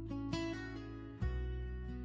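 Background music: an acoustic guitar strumming chords, with a change of chord about a second in.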